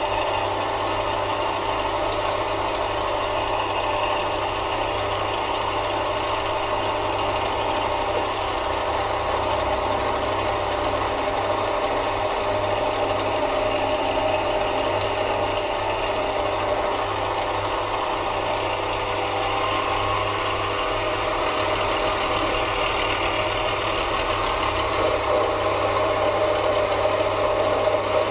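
Mini lathe running at a steady speed: its motor and spindle drive give a constant hum with several steady tones, getting a little louder near the end.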